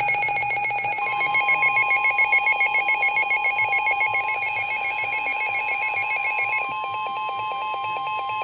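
Emergency alert tones for a severe thunderstorm warning: a fast warbling two-tone alarm, joined about a second in by a steady single-pitch tone, the NOAA Weather Radio warning alarm tone. The warble stops near the end while the steady tone holds on.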